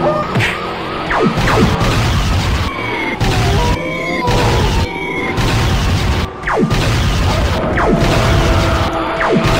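Cartoon explosion and crash sound effects over background music, with several quick sweeps that fall steeply in pitch and steady held tones in the second half.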